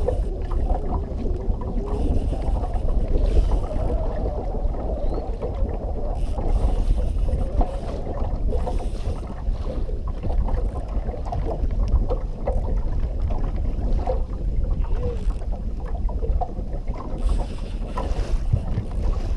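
Steady wind buffeting the camera's microphone aboard a small fishing boat on open water, a constant low rumble with faint knocks now and then.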